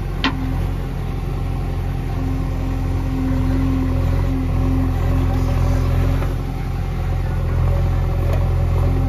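JCB 3DX backhoe loader's diesel engine running steadily under load while the backhoe arm digs. A higher hum over the engine swells for a few seconds in the middle, and there is a short click just after the start.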